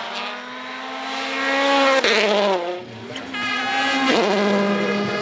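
Hyundai i20 WRC rally car's turbocharged engine at high revs, climbing in pitch as it approaches, then dropping in pitch as it goes by about two seconds in. A second rally car's engine comes in loud at high revs a little after three seconds.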